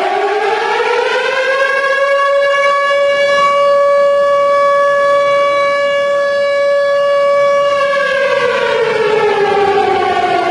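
Civil-defence air-raid siren sounding one long wail: it rises in pitch over about two seconds, holds a steady pitch, then falls away from about eight seconds in. It is the alarm signal for a civil-defence evacuation drill.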